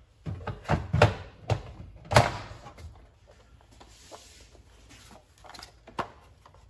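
Knocks and clicks of calipers being fetched and handled at the workbench: a quick run of sharp knocks in the first two seconds or so, then quieter, with one more click near the end.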